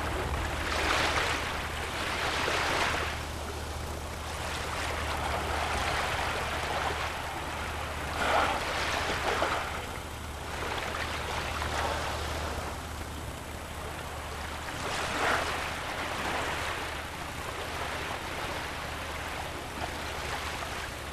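Water sloshing and splashing against shoreline rocks as killer whales swim right alongside, rising in rushing surges every few seconds over a steady low hum.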